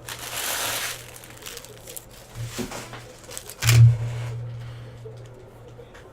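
Foil wrapper of a hockey card pack crinkling as it is torn open, followed by scattered light clicks of handling and a thump a little past halfway, the loudest sound, over a steady low hum.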